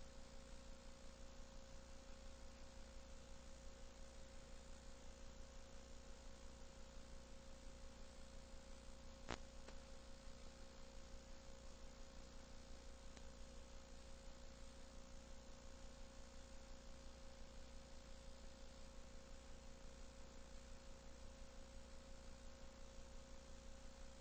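Near silence: a faint, steady electrical hum and hiss on the recording, with a single click about nine seconds in.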